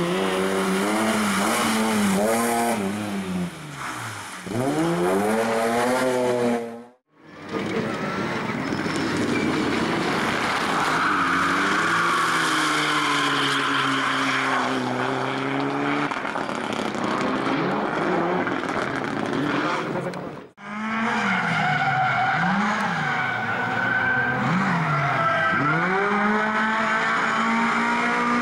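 Rally cars driven hard through corners one after another, first a BMW E30, then a Mitsubishi Lancer Evolution, then a classic Lada. Their engines rev up and drop back again and again with gear changes and throttle lifts, and the tyres squeal as the cars slide. The sound breaks off briefly twice as one car gives way to the next.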